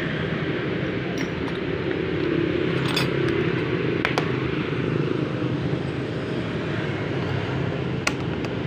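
A steady motor drone runs throughout, with three sharp light clicks as metal nail-gun parts are handled.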